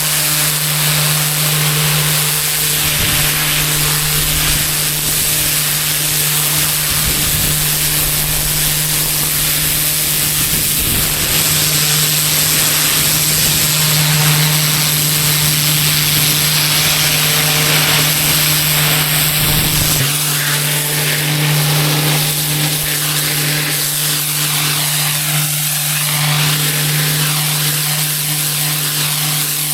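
Pressure washer running: a steady engine-driven pump hum under the hiss of the high-pressure water spray. The deepest rumble drops away about two-thirds of the way in while the hum and hiss carry on.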